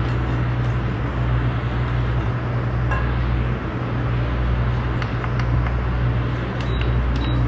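Wire whisk clinking and scraping against a stainless steel bowl while butter and condensed milk are mixed, stopping after a few seconds, with a few light clicks afterwards. A steady low hum runs underneath throughout.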